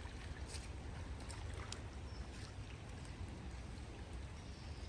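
Steady rush of floodwater flowing through a ford, with a low rumble underneath and a few faint clicks.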